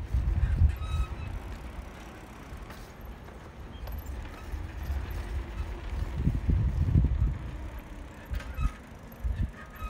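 Riding a bicycle along a concrete path: wind buffeting the microphone as an uneven low rumble that swells and fades, over the tyres rolling. A couple of faint short squeaks about a second in and again near the end.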